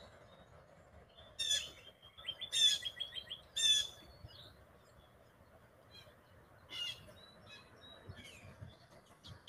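Wild birds calling: three loud, harsh calls about a second apart starting a second and a half in, a fourth near the end, with faint short chirps between them.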